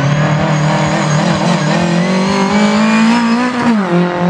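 Rally car engine running hard under acceleration, its pitch climbing steadily for about three seconds, then dropping sharply near the end.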